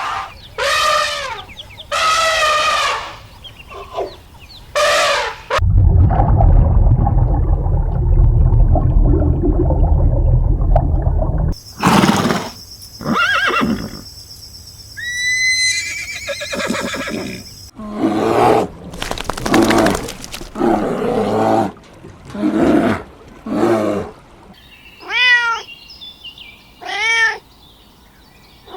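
A string of different animal calls, one clip after another. There are several drawn-out pitched cries, a loud low rumbling stretch of about six seconds in the first half, assorted cries and high whistles, and three short cat meows near the end.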